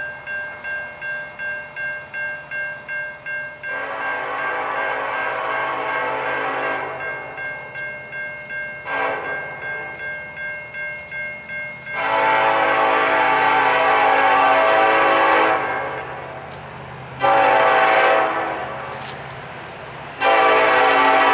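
A train's locomotive air horn sounds a grade-crossing sequence as it approaches: a long blast about four seconds in, a short one, then three louder long blasts. Under the horn a grade crossing bell rings steadily, a few strokes a second.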